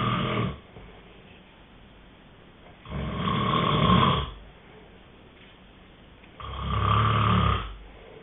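A person snoring in slow, regular breaths. One snore tails off just after the start, then two more of about a second and a half each follow, roughly three and a half seconds apart.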